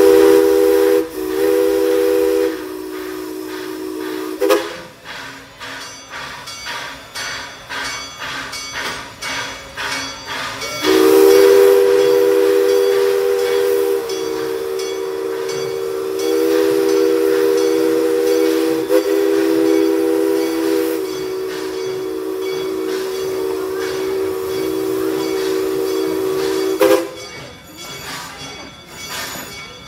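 Steam locomotive's chime whistle sounding a chord of several notes: a blast of a few seconds at the start, then a long blast beginning about eleven seconds in and held for some sixteen seconds. Between and after the blasts come regular puffs of steam from the engine.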